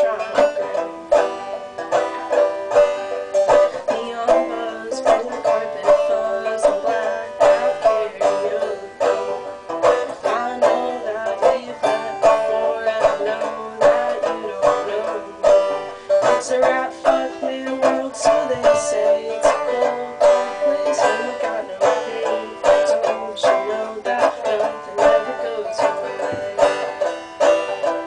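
Five-string banjo played clawhammer style: a steady, fast run of downward-struck plucked notes making a bluesy tune.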